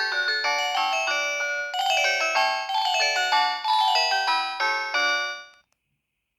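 Stock ringtone of a Philips Xenium E207 mobile phone: a quick, bell-like melody of many short notes, several sounding at once, which dies away and stops about five and a half seconds in.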